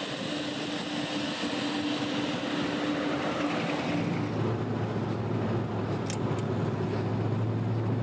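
GAZ-13 Chaika limousine's V8 driving along a road: steady engine and tyre noise, settling into a deeper steady drone about halfway through.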